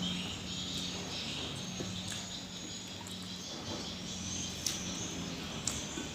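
Eating sounds: a few soft clicks from chewing or utensils, over steady high-pitched insect-like chirring and a low hum.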